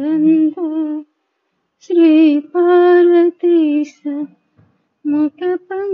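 A woman singing a devotional hymn unaccompanied, in long held phrases, with a breath break about a second in and a short pause near the end.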